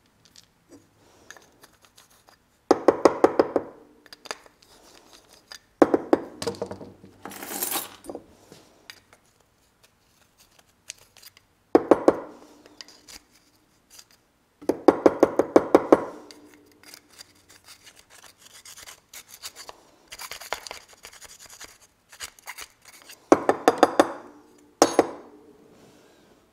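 Short bursts of rapid scraping and rasping from a metal pick dug into a small pump's metal housing, clearing out a packed mud-dauber wasp nest. About seven bursts come at irregular gaps, with faint scratching between them.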